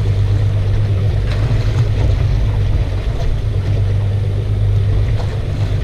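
Boat outboard motor running steadily at idle, a constant low hum, with wind and choppy water noise around the hull and a few faint clicks.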